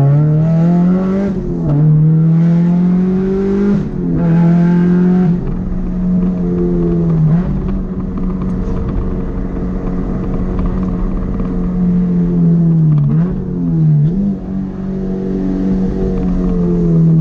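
Honda four-cylinder car engine running hard at high revs. Its pitch holds steady for long stretches, drops sharply several times and climbs back up.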